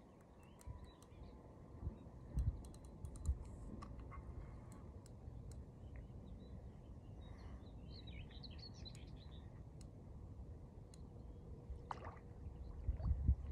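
Faint lakeside background: a steady low rumble with a few soft knocks and small clicks, and a short burst of bird twittering about eight seconds in.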